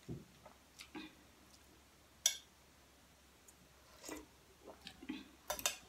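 Metal spoon clinking a few times against a steel pot and plastic food containers, the sharpest clink about two seconds in, then soft sips of soup from the spoon near the end.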